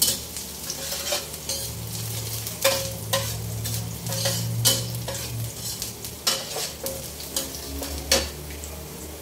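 Metal spatula scraping and clinking against a steel wok in irregular strokes while chopped shallots and garlic sizzle in hot oil.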